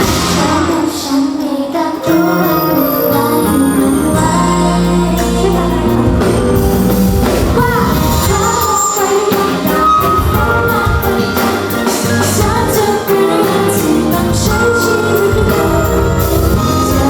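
T-pop song with the female group's singing over a steady beat, played loud.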